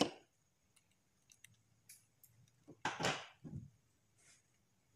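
Faint clicks and ticks of a small hand tool on the metal deck of a rebuildable vape atomizer as the coil screws are tightened, with a short rush of noise about three seconds in.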